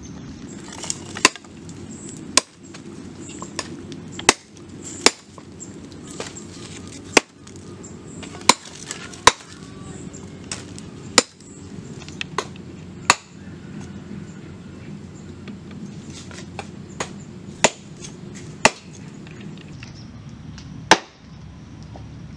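Heavy cleaver blows chopping through cow leg bone and meat on a round wooden chopping board. About sixteen sharp strikes come at an uneven pace, roughly one a second, with a few lighter ones between.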